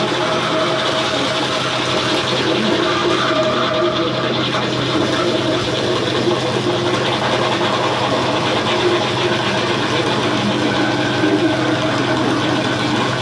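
Lo-fi electronic noise drone from a small red keyboard run through guitar effects pedals: a dense, steady buzzing texture over a constant low hum.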